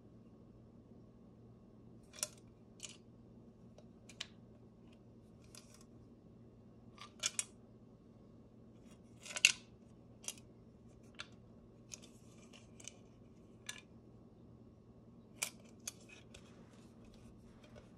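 Antique embossed brass black-powder flask handled and turned in the hands: scattered sharp metallic clicks and taps, about a dozen, the loudest about halfway through.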